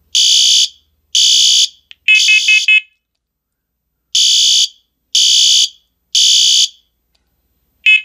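Fire alarm horn sounding together with a wired First Alert smoke alarm in the temporal-three evacuation pattern: three loud, high-pitched beeps of about half a second each, a pause, then three more, with a new group starting near the end. The third beep of the first group has a rattling, pulsing edge.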